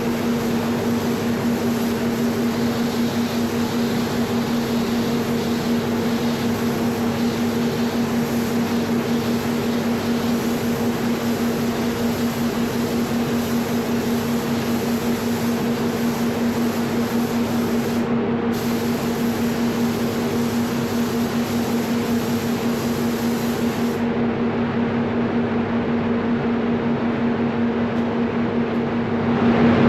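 Steady hiss of compressed air with a constant droning hum, as from a paint spray booth's fans while water-based base coat is sprayed. The highest part of the hiss drops away about 24 seconds in.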